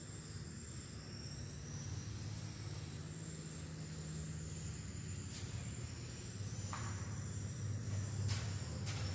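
Insects trilling steadily on two high notes over a low hum, with a few light knocks near the end.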